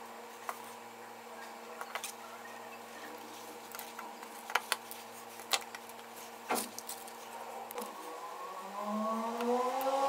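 Small electronic parts and a circuit board being handled and set down on a table: a handful of sharp light clicks and taps spread out over a steady low hum. Near the end a rising, wavering tone comes in and grows louder.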